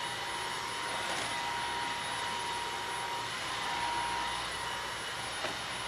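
Tesvor R5 cordless wet-dry floor scrubber running, a steady motor whine with the rush of its suction and roller, as it is pushed over a spill of wet dirt and water on a hard floor. A small click near the end.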